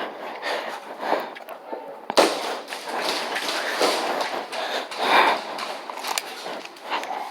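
A sharp crack about two seconds in, amid scattered smaller knocks and clicks and ongoing rustling movement noise.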